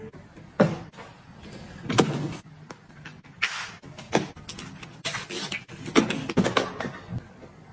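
A hard-shell plastic suitcase and a canvas tote bag being handled, with a string of separate sharp clicks and knocks and a few brief rustling swishes between them.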